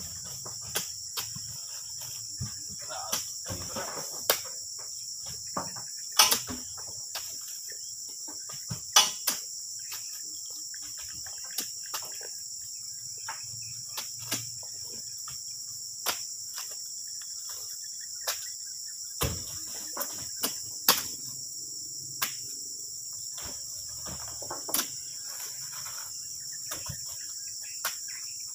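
Steady high-pitched insect chorus, with irregular sharp knocks and thuds as oil palm fruit bunches are speared on spiked poles and tossed into a metal tractor trailer.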